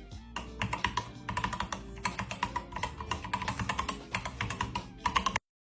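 Rapid, irregular clicking, several clicks a second, over background music. Both stop abruptly near the end.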